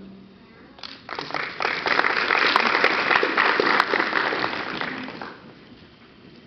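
Audience applauding. The clapping starts about a second in, builds quickly and dies away after about five seconds.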